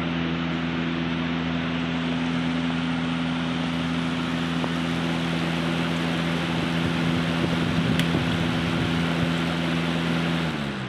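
Room air cooler running: a steady rush of fan air over a low motor hum. Near the end the hum sinks in pitch and the rush falls away as the cooler winds down.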